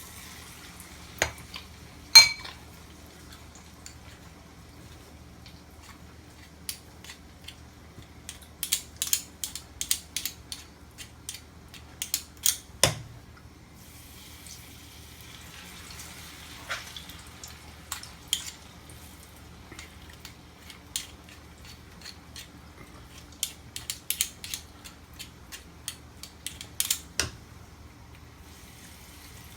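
Falafel deep-frying in hot vegetable oil: scattered crackles and pops, coming in clusters, with a ringing metal clink about two seconds in. A steady low hum runs underneath.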